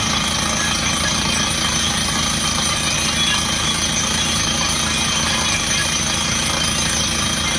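Truck-mounted water well drilling rig running under test: steady engine and machinery noise with a fast, even pulsing underneath.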